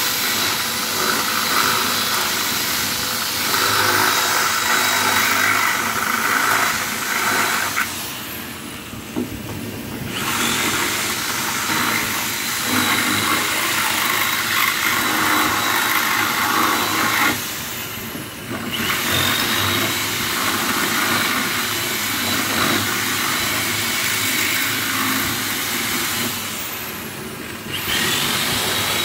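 Corded electric drill running in long spells, drilling into the car's sheet-metal body for rivnut holes; three times it stops for a second or two and winds down before starting again.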